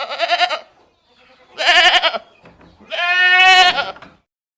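An animal calling three times: two short wavering cries, then a longer, steadier one.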